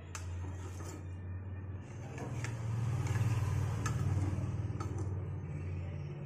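A metal spatula clicks lightly against a non-stick pan a few times as it stirs a thin, watery curry, over a steady low rumble.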